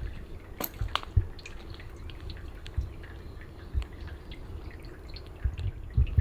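Rain dripping and falling in scattered, irregular taps, with a few low thuds.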